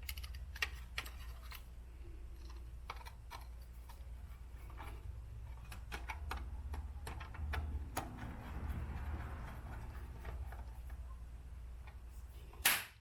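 Small, irregular clicks and taps of wire leads being handled and fitted to the scroll saw's control board, with light rustling midway and one louder sharp click shortly before the end.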